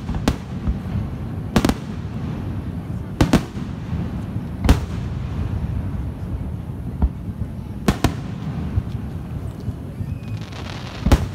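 Aerial fireworks shells bursting: about six sharp bangs at uneven gaps of one to three seconds over a steady low rumble, with a crackle shortly before the last bang.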